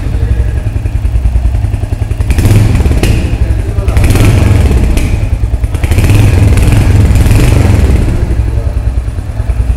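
Royal Enfield Hunter 350's 349 cc single-cylinder engine running with a pulsing thump, revved up three times with the throttle, about two, four and six seconds in, and settling back between.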